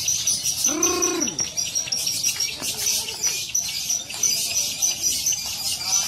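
Many caged lovebirds singing at once in a dense, high-pitched chatter, with a steady string of short, sharp chirps running through it. A man's voice calls out briefly about a second in.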